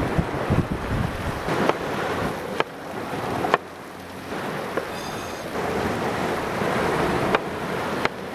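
Steady surf and wind noise on the microphone, with a few sharp knocks of a knife on a wooden cutting board as vegetables are chopped, the loudest about halfway through.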